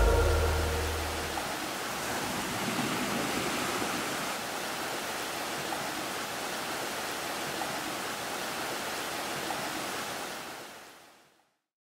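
Steady rush of water falling down an ice-covered waterfall, fading out near the end.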